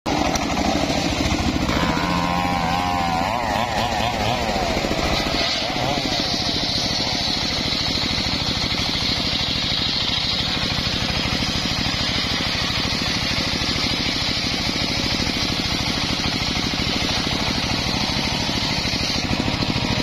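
Homemade circular sawmill's engine running steadily with rapid, even firing pulses. From about five seconds in, the big circular blade rips lengthwise through a gmelina log with a steady high whine that eases off near the end.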